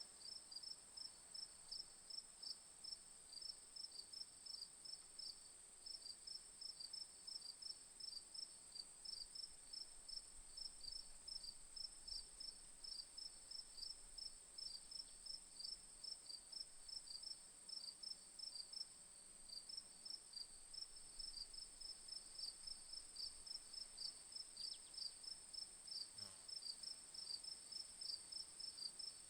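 Crickets chirping: quick, repeated short chirps over a continuous high-pitched trill.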